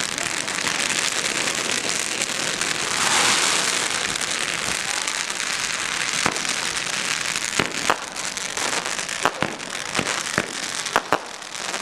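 Firework fountains hissing and spraying sparks, swelling loudest about three seconds in. In the second half the hiss is broken by a growing run of sharp bangs and crackles as aerial effects burst.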